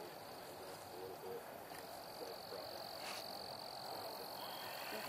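Faint outdoor night ambience: frogs calling. A steady high-pitched tone comes in about two seconds in and holds.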